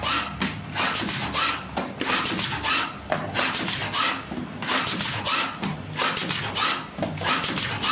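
ZXTJ 600A automatic box corner-pasting machine running, its cycle repeating with a mechanical clatter about once a second and sharp clicks in between.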